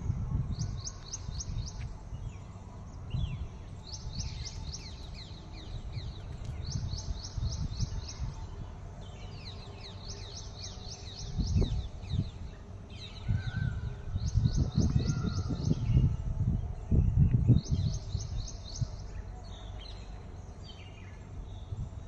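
A small songbird singing a fast trill of high notes, the phrase repeated every few seconds. Under it, low rumbling noise on the microphone swells loudest in the second half.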